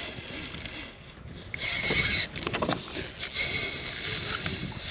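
Fishing reel drag buzzing as a hooked fish pulls line off against it, in spurts of a steady high whine, one about a second and a half in and another from about three and a half seconds.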